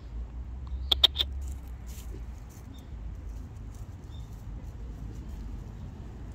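A cat pushing through dry leaves and twigs under a hedge: rustling, with three sharp crackles close together about a second in, then scattered faint ticks.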